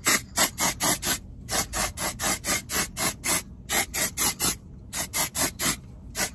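A hand-held spray being sprayed around a car interior in rapid short spritzes, about three or four hisses a second, in runs with brief pauses between.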